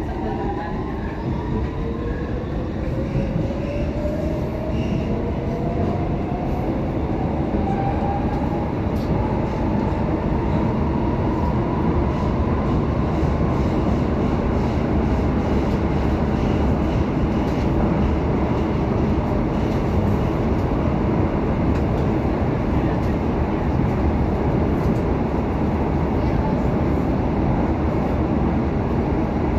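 Copenhagen Metro driverless train (AnsaldoBreda) running through a tunnel, heard from inside the car. The traction motors' whine rises in pitch over the first dozen seconds as the train accelerates, then gives way to a steady rumble of wheels on rail at speed.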